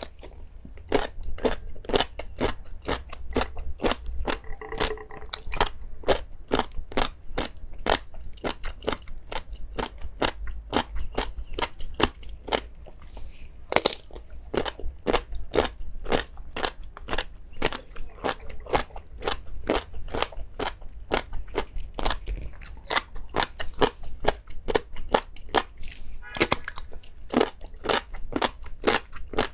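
Close-miked crunchy eating: a person biting and chewing crisp food, with a sharp crunch about two or three times a second.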